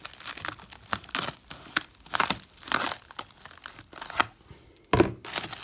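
Clear plastic stretch wrap crinkling and tearing as it is cut with scissors and pulled off metal bars, in a run of irregular crackles. A louder thump comes about five seconds in.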